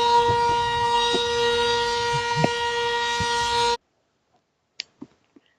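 Emergency alert alarm tone played back from an alert broadcast: one loud, steady tone with no rise or fall. It cuts off suddenly a little under four seconds in, leaving a few faint clicks.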